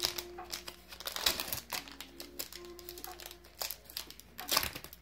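Foil Pokémon card booster-pack wrapper crinkling and crackling as hands work it open, with sharp crackles about a second in and again near the end.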